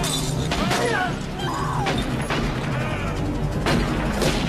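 Action-film soundtrack: a dramatic music score with a handful of sharp, irregularly spaced pistol shots cutting through it.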